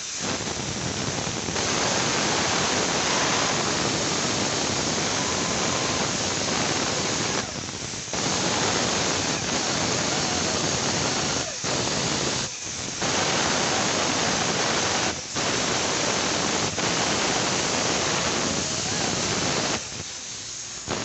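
A loud, steady hissing rush, like a jet of air or spray, that stops briefly about five times and cuts out near the end.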